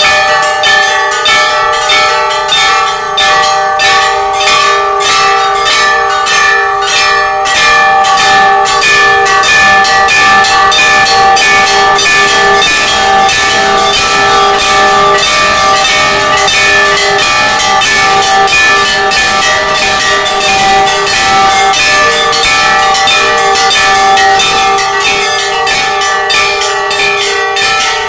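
Several large metal temple bells rung by hand together, their clappers striking several times a second in a continuous clanging that overlaps into a sustained ringing at several pitches.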